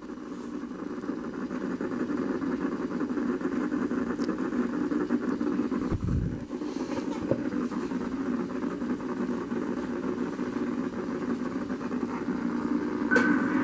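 A steady low mechanical hum with no speech.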